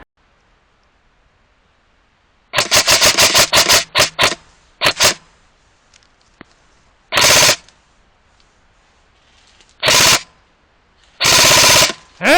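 Airsoft electric rifle (a Specna E19 AEG) firing: a quick string of single shots about two and a half seconds in, then three short full-auto bursts, the longest near the end.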